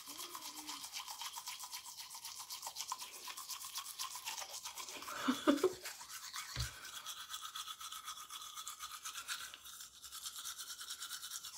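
Manual toothbrush scrubbing teeth in fast, steady back-and-forth strokes, several to the second. A brief muffled hum from the brusher comes about five and a half seconds in, and a short low thump follows a second later.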